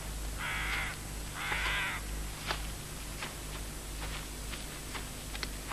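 A crow cawing twice in harsh, rasping calls about half a second long within the first two seconds, followed by faint scattered ticks.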